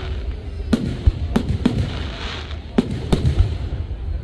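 Fireworks display going off: a quick string of sharp bangs, about seven in four seconds, over a continuous low rumble and crackle.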